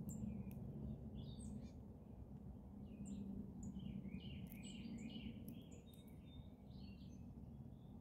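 Several wild birds chirping and calling with short, varied notes, busiest a little past the middle, over a faint steady low hum of background noise.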